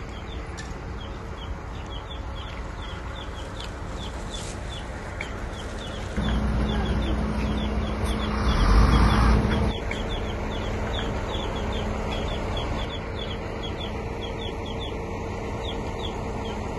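Birds calling over and over in short chirps, about two or three a second, over steady outdoor background noise. A louder low engine sound runs between about six and ten seconds in.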